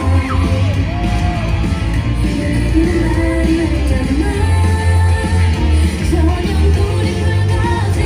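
Upbeat K-pop dance song played loud over a concert PA, with a heavy bass beat and women's singing.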